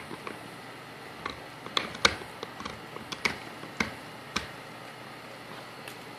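A dog gnawing a Nylabone, a hard nylon chew bone: a run of irregular, sharp clicks and cracks of teeth on the nylon, which stop a little past the middle.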